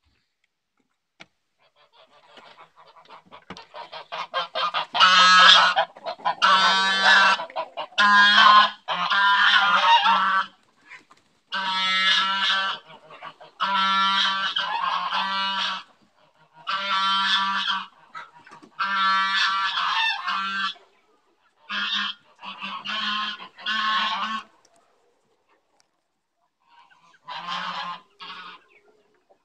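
Domestic geese honking: a quickening run of short calls builds up, then a long series of loud honks, each under about a second, with a pause near the end before a last couple of calls.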